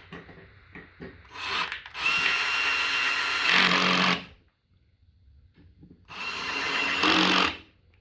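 Cordless power drill/driver running twice on a screw, once for about two and a half seconds and then for about a second and a half, its motor whine steady with a lower-pitched load sound near the end of each run.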